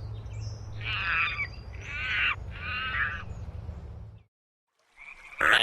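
Monkey sound effect: three harsh, pitched calls in a row over a low steady jungle hum, cutting off sharply about four seconds in. Near the end a brief loud sound is followed by a steady high chirring.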